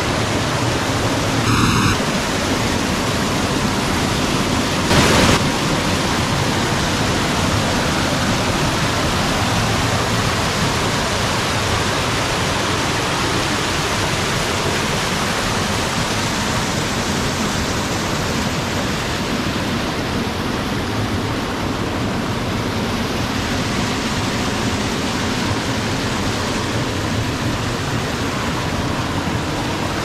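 Small creek waterfall rushing and splashing over rocks close by: a steady, loud, full rush of falling water. A short knock sounds about five seconds in.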